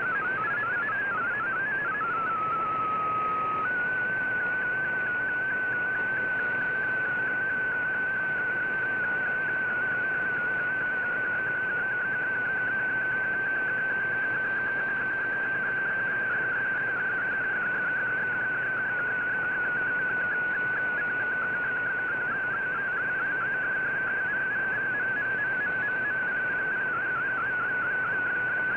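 Digital-mode data tones from a shortwave radio broadcast, heard over steady band hiss. In the first few seconds the tone steps between several pitches, then settles on a lower steady note. About four seconds in it jumps to a higher tone that warbles quickly in small steps and runs on unbroken.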